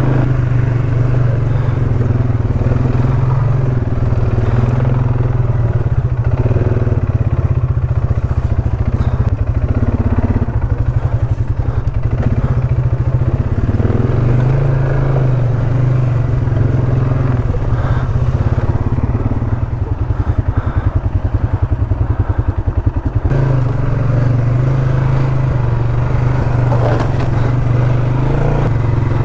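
ATV engine running steadily as the quad rides a rough trail, a constant low engine note with some rattling over it.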